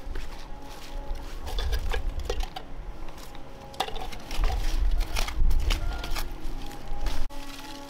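Irregular scraping, rustling and clicking as a small hand tool digs through a pile of burnt rubbish and ash and picks out cans and bottles, with a low rumble underneath.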